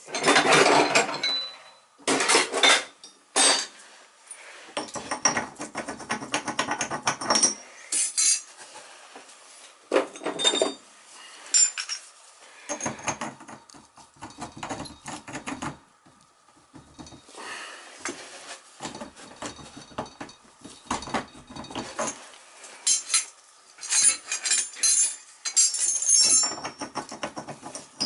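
Metal tools clinking and scraping: a steel stem socket knocking against the brass stem of an old, leaking tub/shower valve as it is fitted over it, in irregular clinks.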